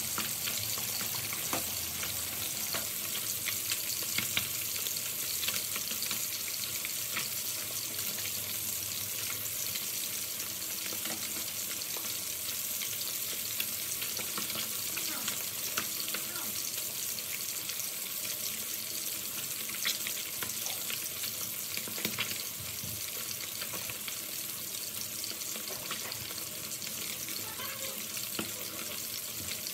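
Small whole fish deep-frying in hot oil in a pan: a steady sizzle with scattered crackling pops.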